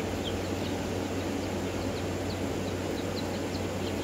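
Young Black Marans chicks peeping: short, high, downward-sliding chirps about three to four times a second, over a steady low hum.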